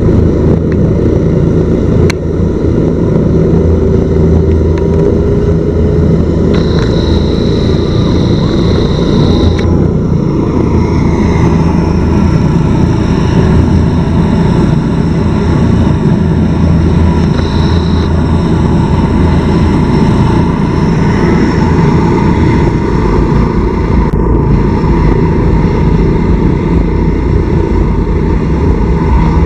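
Helicopter rotors and turbine engines running on the ground, a loud, steady noise with a high whine that comes and goes.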